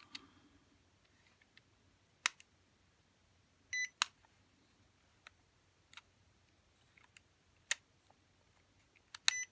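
Short electronic beeps from a small E56 quadcopter drone and its controller, twice a few seconds apart, amid a few sharp button and switch clicks. No motor spin-up follows: the motors fail to start when commanded.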